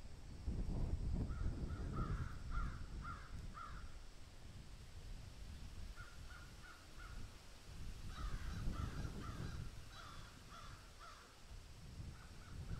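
Crows cawing in runs of short, harsh calls: several in a row early on, a short group in the middle, a longer run after that, and a few more near the end, over a low steady rumble.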